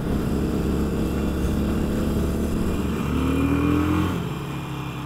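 Motorcycle engine running as the bike rides along. Its pitch rises briefly about three seconds in, then the sound drops and fades out near the end.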